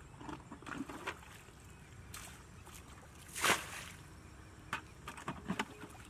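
Water sloshing and splashing as a bucket is dipped into a shallow ditch and its water thrown out, bailing the ditch dry. The loudest splash comes about halfway through, with shorter splashes before and after.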